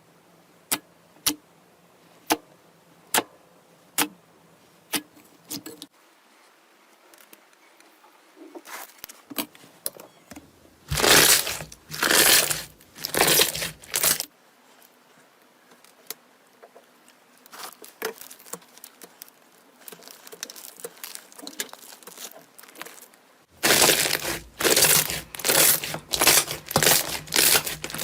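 Slime being pressed and squeezed: a run of sharp single pops first, then crackling and squelching, with loud repeated crunchy squishes near the end.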